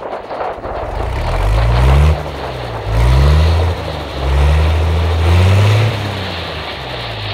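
Heavy vehicle engine pulling hard under load, its pitch climbing, dropping back and climbing again three or four times.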